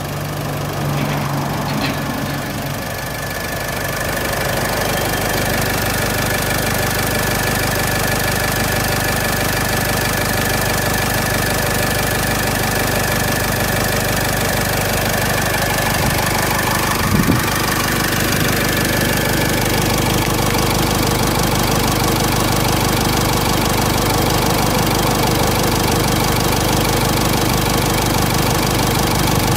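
Mitsubishi 4D56 2.5-litre four-cylinder common-rail turbo diesel idling steadily with a knocking diesel clatter. A thin high whine sits over it for roughly the first twenty seconds, and there is one short knock about seventeen seconds in.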